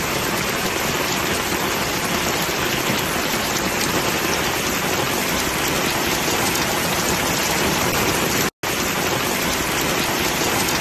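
Heavy downpour of rain, a steady, even hiss, with a brief break about two-thirds of the way through.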